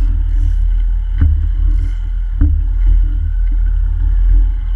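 Water rushing past a GoPro camera's housing underwater: a muffled, steady low rumble, with a faint steady hum over it. A light knock comes about every second and a quarter.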